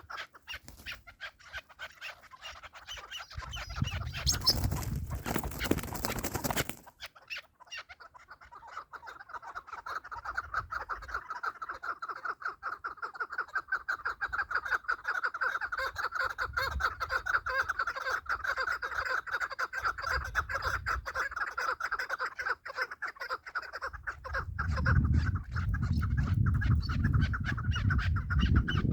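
Chukar partridge calling: a long, rapid run of clucking notes that goes on steadily from about eight seconds in. Earlier there is a loud rush of noise lasting a few seconds, and low rumbling near the end.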